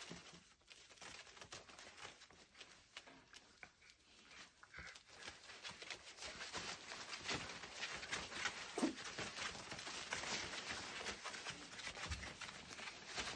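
Lancashire Heeler puppies and their mother scrabbling and playing on a plastic tarp and fleece bedding: a quick patter of claws with crinkling, rustling plastic, busier and louder in the second half.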